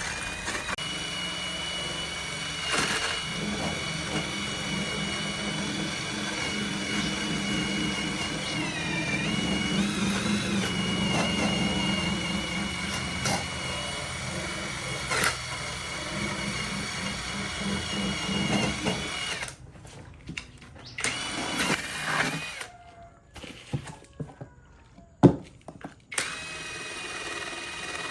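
A power tool running with a steady high whine that dips in pitch briefly as it takes load. Later it stops for several seconds, leaving only scattered clicks and knocks, then starts again.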